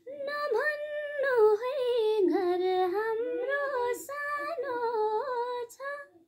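A woman singing a Nepali song unaccompanied: a slow melody of long held notes with ornamented turns, a brief catch of breath about four seconds in.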